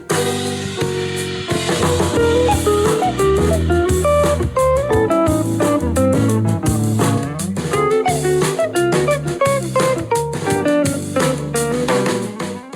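Music with guitar and drum kit played back through a small Tribit Bluetooth speaker, starting to fade out near the end.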